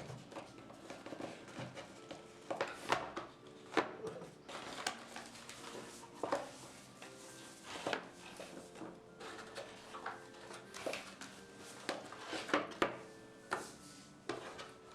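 A keyboard and its packaging being handled during unboxing: irregular knocks, clicks and light rustles, with faint background music.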